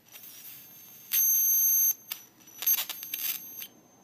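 High-voltage arcing from a flyback transformer probe: a loud, steady high-pitched whine starts about a second in and cuts off after under a second. Crackling sizzle follows, with the whine coming back in short spurts near the end.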